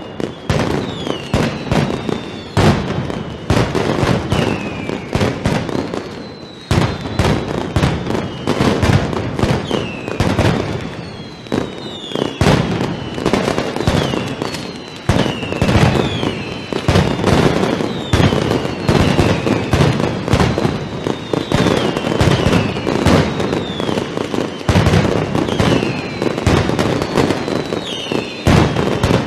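Mascletà firework barrage: a dense, continuous rattle of firecracker bangs and aerial shell reports, with whistling rockets that slide down in pitch every second or so.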